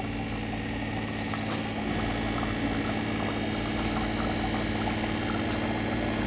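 Chicken curry simmering and bubbling in an open aluminium kadai, over a steady low hum.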